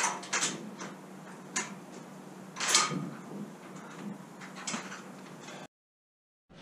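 Metal parts of a bolted steel bracket clicking and knocking as they are handled and fitted, about five separate knocks with the loudest near the middle, over a steady low hum. The sound cuts off about a second before the end.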